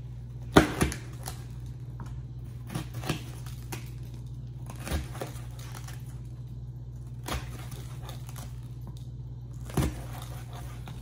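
Chef's knife cutting poblano peppers on a plastic cutting board: a handful of separate knocks of the blade striking the board, a second or more apart, the loudest about half a second in. A steady low hum runs underneath.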